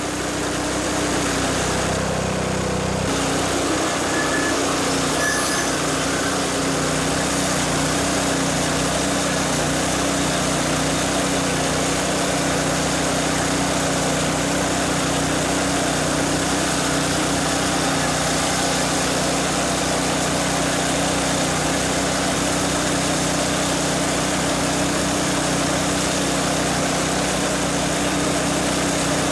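McLane reel mower's small gasoline engine running steadily with the cutting reel engaged and spinning for backlapping, the lapping compound grinding the reel against the bed knife. The sound shifts briefly about two seconds in, then holds steady.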